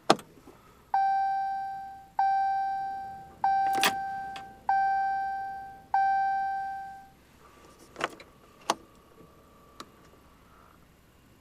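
Pickup truck's warning chime sounding five times, about a second apart, each tone ringing and fading, while the diesel engine fails to crank. Sharp clicks come at the start, about four seconds in, and a few more near the end, the single click the truck gives instead of cranking.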